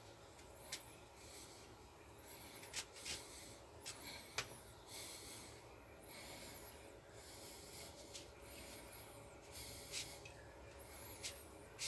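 Nylon paracord rubbing and swishing as it is pulled and worked through a woven bracelet by hand. The sound is faint: short scratchy swishes every second or two, with a few light clicks.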